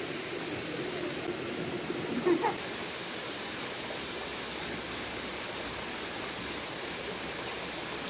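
Steady rush of flowing water from a rocky mountain stream and its waterfalls, an even hiss with no rhythm.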